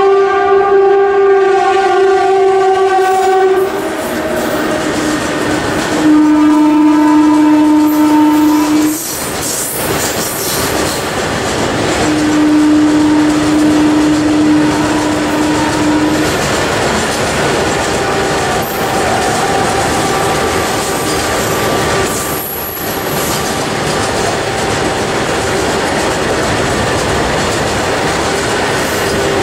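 Indian electric locomotive horn sounding three long blasts, the first higher-pitched than the next two, over the steady rumble and clickety-clack of an express train running through the station. Fainter horn notes follow later.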